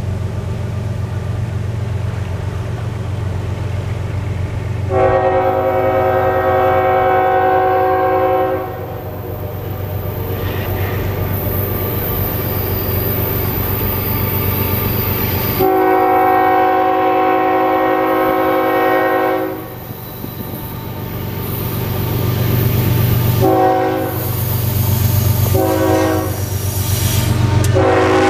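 Lead locomotive of a CSX freight, a GE ES44AH, sounding its horn as it approaches: two long blasts, then two short ones, then another starting near the end. A steady low rumble from the train runs underneath and grows as the locomotives pass close by at the end.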